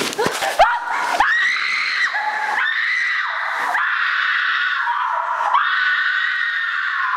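A woman screaming in long, high-pitched screams with short breaks between them. A few knocks in the first second come as the handheld camera tumbles to the floor.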